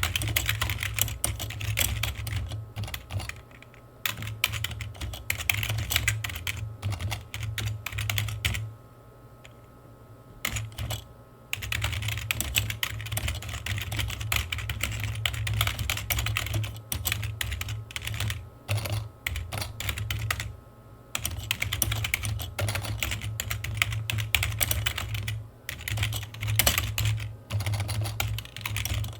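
Computer keyboard typing in fast runs of key clicks, broken by short pauses, the longest about nine seconds in.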